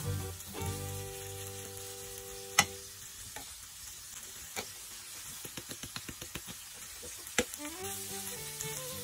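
Food sizzling as it fries in a pan, with a sharp clack about a third of the way in, a quick run of light taps, and another loud clack near the end. Background music plays at the start and returns near the end.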